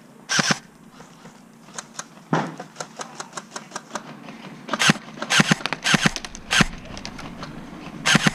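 Airsoft guns firing: sharp single shots at irregular intervals, with fainter ticks in the first half and the loudest reports clustered about five to six and a half seconds in.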